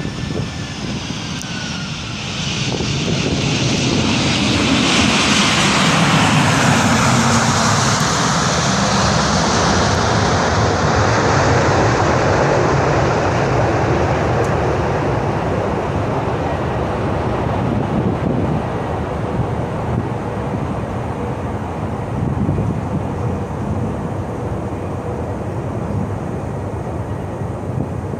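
Airbus A340-300 landing, its four CFM56 jet engines going into reverse thrust. An engine whine falls in pitch at the start. About three seconds in, a loud rush of reverse thrust builds, holds for several seconds, then slowly dies away as the airliner slows on the runway.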